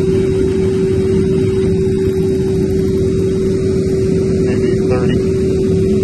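Steady mechanical hum: one constant mid-pitched tone over a low rumble, unchanging throughout.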